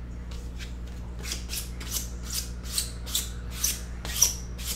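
Panini Prizm football cards sliding against one another as a pack is flipped through by hand: a quick swish about three times a second, starting about a second in, the loudest near the end.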